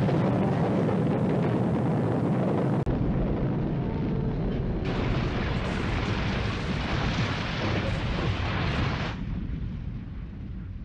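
Film sound of a truck loaded with nitroglycerin blowing up: a loud, sustained rumbling roar of the blast, with wreckage flying, that dies down to a duller distant rumble near the end.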